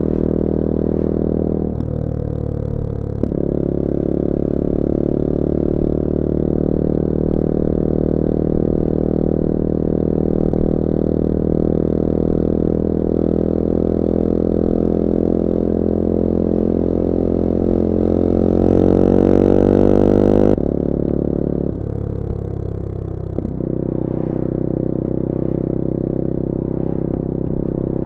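Bullit Hero 250's 250cc four-stroke engine running under way. It shifts gear about two seconds in, pulls steadily, then rises in pitch as it accelerates and cuts off sharply for another gear change about twenty seconds in, before settling back to a steady run.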